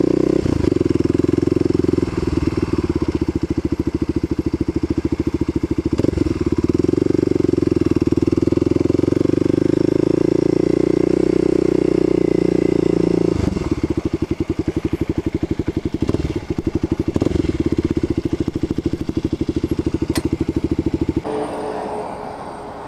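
Kawasaki KLX250SF's single-cylinder four-stroke engine running at low, steady revs, then settling to a fast, even idle about halfway through. It is shut off suddenly near the end.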